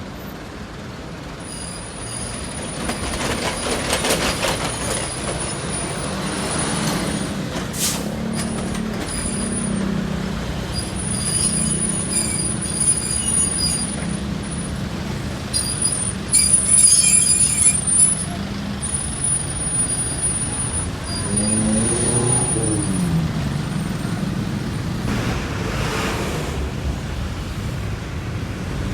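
Heavy diesel trucks running past on a road, with a steady low engine drone and hissing bursts of air brakes. A thin high whine comes and goes through much of it, and an engine's pitch dips and rises about three-quarters of the way through.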